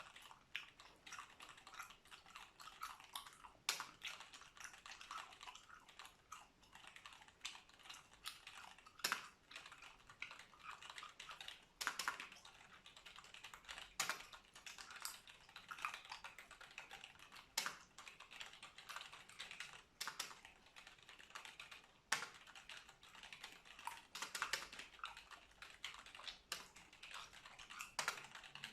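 Computer keyboard typing: a rapid, continuous run of key clicks, with a louder key strike every two to three seconds, mixed with close-miked gum chewing.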